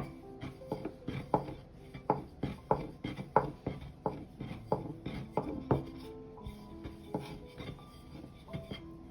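Repeated sharp knocks on a wooden kitchen board, roughly two a second, thinning out after about six seconds, over soft background music.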